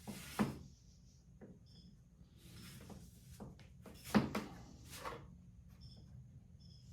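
Hand tools and a wooden part being handled on a workbench while a spot is marked with an awl: a few sharp clicks and knocks, the loudest about four seconds in, and a couple of short scrapes.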